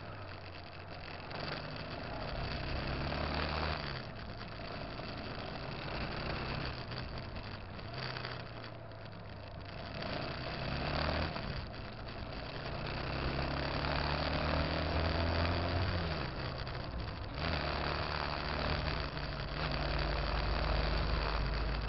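Motorcycle engine running through traffic, its pitch rising and falling again and again as the rider speeds up and shifts, over steady wind and road noise.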